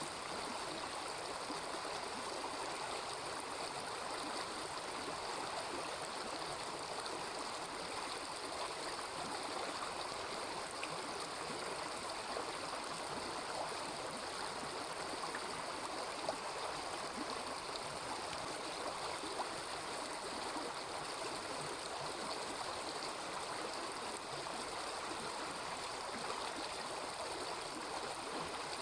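A small river babbling: a steady, even rush of running water.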